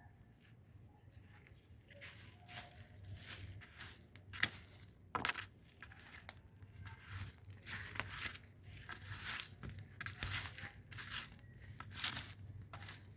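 Dry leaves and twigs crackling and crunching in irregular snaps, with a few louder sharp cracks.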